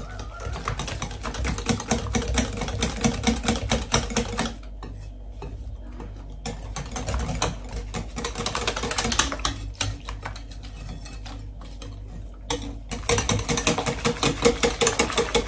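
Rapid scraping and clicking of a kitchen utensil worked against a mixing bowl of pancake batter as flour goes in. It comes in three bursts with short pauses between them.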